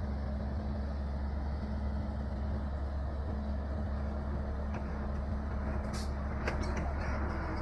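Excavator diesel engine running steadily. A handful of sharp knocks come in the second half.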